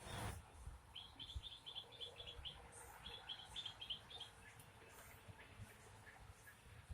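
A bird singing faintly: two runs of quick, evenly repeated high chirps, each run over a second long.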